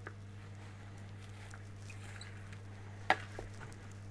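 Pasta salad with rocket and tomatoes being mixed in a bowl: faint soft rustling and squishing, with one sharp click about three seconds in. A steady low electrical hum runs underneath.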